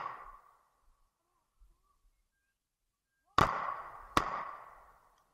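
Three shotgun shots: one at the very start, then two close together about three and a half seconds in, each fading out in a long echo.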